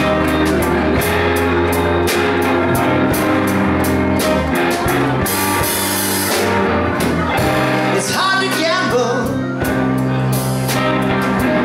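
Live blues-rock band playing: electric guitars, bass and keyboard over a drum kit keeping a steady beat with cymbals, with wavering, bending notes in the second half.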